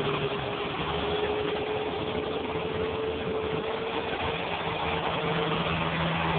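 An engine idling steadily, with a thin steady whine through it that fades out near the end.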